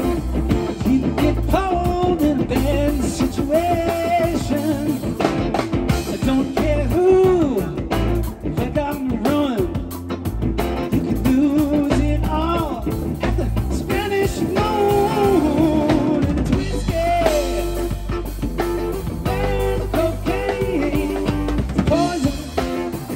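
Live rock band playing at a steady loud level: electric guitar, electric bass and a drum kit with cymbals, with a bending lead line over the groove.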